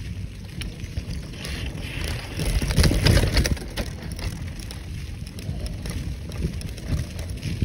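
Bicycle rolling over a leaf-covered dirt trail: tyre rumble and frame rattle, with wind buffeting the microphone. It gets louder and rougher about three seconds in.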